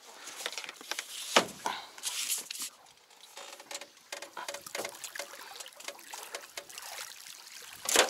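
Water splashing and trickling around a wire mesh keepnet worked in the river at the side of the boat, with a sharp knock about a second and a half in and a louder splash near the end.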